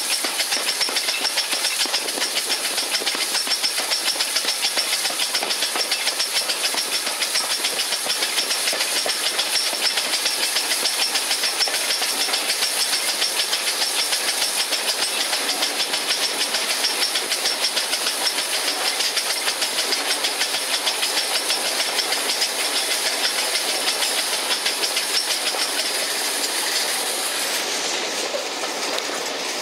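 LMS Black Five 4-6-0 steam locomotive 45428 running at speed, heard from an open window of the carriage behind it: a strong hiss over a fast, even beat. The hiss drops away near the end.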